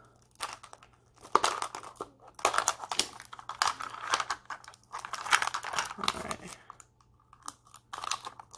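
Hard plastic Mini Brands capsule being twisted and pulled apart, with a few sharp clicks, then the crinkling of the wrapping around the miniature inside as it is handled.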